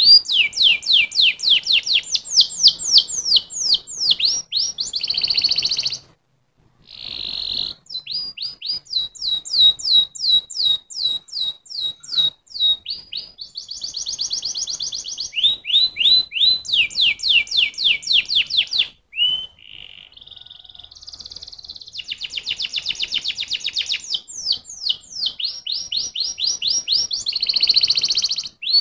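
Domestic canary singing: a long song of fast trills, each a rapid run of one repeated high note before switching to a new one, broken by a pause of about a second after the first quarter and a shorter break about two-thirds in.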